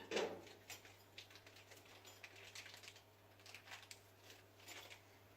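Small TIG torch parts being handled: one light knock just after the start, then faint scattered clicks and taps.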